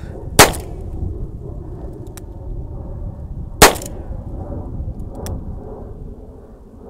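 Two handgun shots about three seconds apart, each a sharp crack with a short tail, over a steady low wind rumble.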